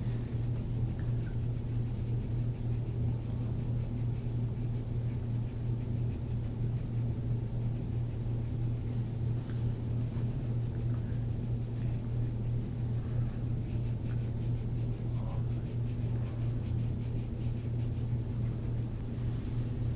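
A steady low hum with no speech.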